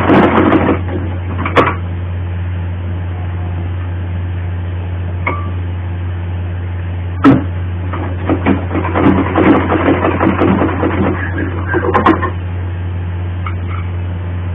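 Domestic sewing machine stitching in short runs, a rattling clatter near the start and again from about eight to twelve seconds in, with a sharp click in between. A steady low hum runs underneath throughout.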